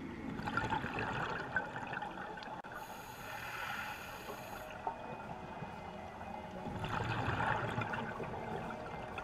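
Scuba breathing underwater: gurgling bursts of exhaled air bubbles from a regulator, coming every few seconds, with a hissing rush about three seconds in.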